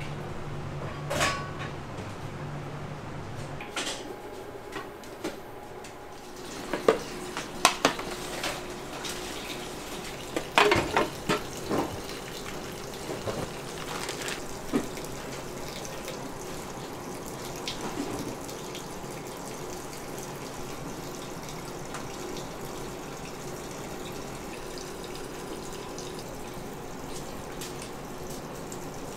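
Water running from a kitchen tap, with scattered clinks and knocks of dishes and utensils, busiest in a cluster a third of the way in.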